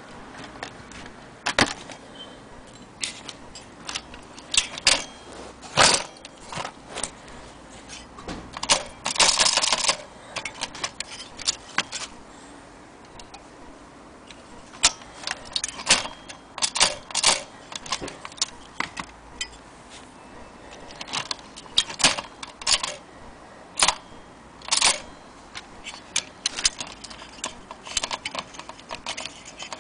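Antique Corona typewriter being typed on: irregular clacks of the keys striking, some singly and some in quick runs, with a longer burst about nine seconds in.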